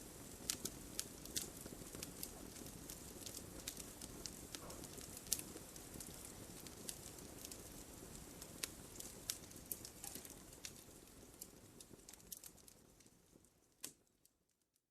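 Wood fire burning in a fireplace: irregular sharp crackles and pops of the logs over a low, steady rush of the flames, fading away near the end.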